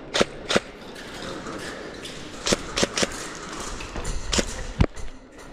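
Airsoft guns firing single shots: about seven sharp snaps at irregular intervals, two close together near the start and the rest spread through the middle and later part.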